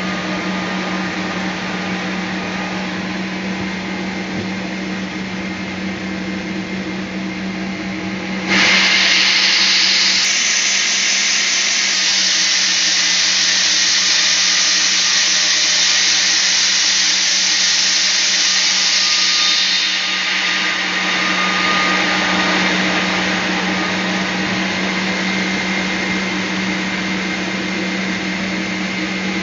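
Sawmill bandsaw running with a steady hum. About a third of the way in, a sudden, much louder high-pitched rushing noise starts as the blade cuts through a teak log. It eases back to the quieter running about two-thirds of the way through.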